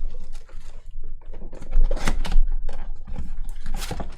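Trading cards being handled and flipped through by hand: a run of irregular sharp clicks and snaps as the stiff chrome cards are slid and flicked past one another, with the loudest snaps about two seconds in and near the end.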